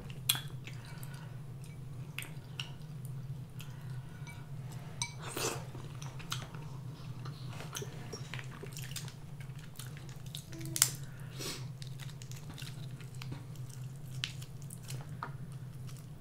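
Close-up eating sounds: chewing and mouth noises, with scattered small clicks and cracks as king crab is picked from its shell by hand. One sharper crack comes about two-thirds of the way in, over a steady low hum.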